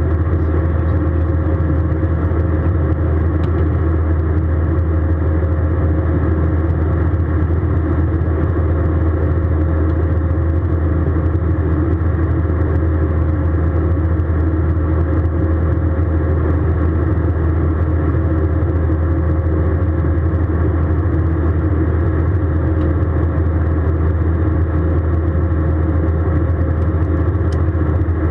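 Steady drone inside an Airbus A320 cabin: jet engine and airflow noise, unchanging, with a deep rumble and a faint steady hum.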